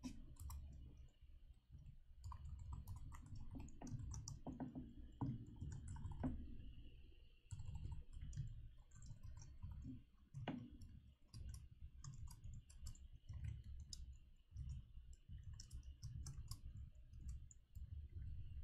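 Computer keyboard being typed on: faint, irregular key clicks with soft low thuds, in quick runs with short pauses.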